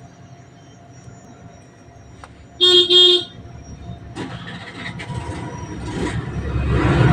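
A vehicle horn sounds two short toots about two and a half seconds in, over faint background noise. Road traffic noise then builds up toward the end.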